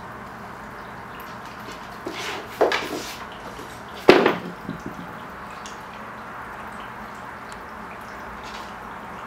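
Aquarium water trickling and dripping steadily, with a few brief, sharper noises about two seconds in and a louder one about four seconds in.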